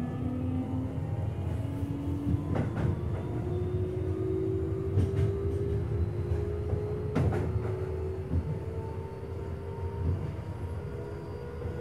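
Keio new 5000 series electric train heard from inside the passenger car while running, with the traction motors' whine climbing slowly in pitch as the train picks up speed over a steady wheel-and-track rumble. A few sharp clacks from the wheels on the rails come at intervals of about two and a half seconds.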